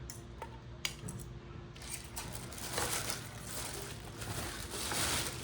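Handling noise from unboxing: a couple of light clicks, then rustling and small clinks as parts and packaging are moved about, growing louder near the end.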